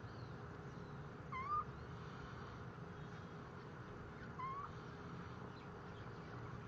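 Cat mewing twice, two short high calls about three seconds apart, over a steady low background hum.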